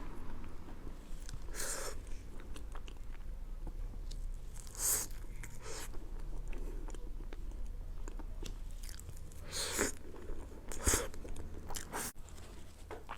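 A person eating soft mille-crêpe cake close to the microphone: steady chewing and mouth sounds, with about six sharper wet smacks or bites spread through.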